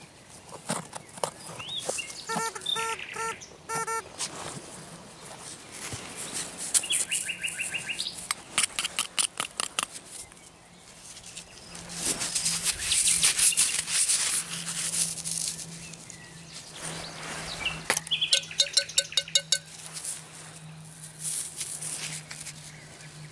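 Common nightingale singing: phrases of quickly repeated notes alternating with rapid clicking trills. A loud scraping, rustling noise about twelve to fifteen seconds in is the loudest sound.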